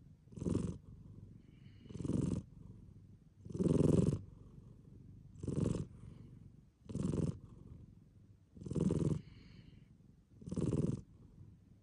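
An American Shorthair tabby cat purring as it dozes, the purr swelling louder with each breath about every second and a half, seven times.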